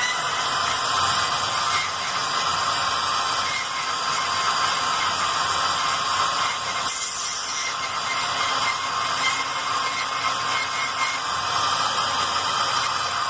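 A machine running steadily, most likely a fan or blower motor: a loud, even rush of air with steady high whining tones over it. It starts and stops abruptly.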